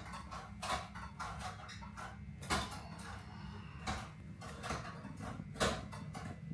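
Restaurant room ambience: a steady low hum under scattered short knocks and clinks, several in a row with the loudest near the middle and near the end.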